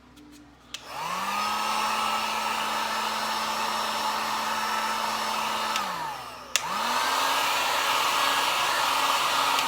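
Small handheld heat gun: its fan motor spins up with a click, runs steadily for about five seconds and winds down, then is clicked on again and runs a little faster and louder before winding down at the end. It is blowing hot air over a laptop-style motherboard's GPU and CPU to reflow them, a fix tried for an all-in-one PC that shows only an orange power light.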